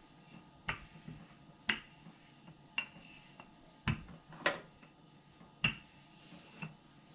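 Wooden rolling pin rolling out cookie dough on a countertop, with seven short sharp knocks, about one a second, as the pin is pushed back and forth.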